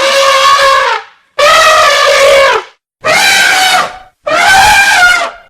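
Elephant trumpeting: a string of loud, brassy blasts of about a second each with short gaps between them, the first already under way and ending about a second in, then three more.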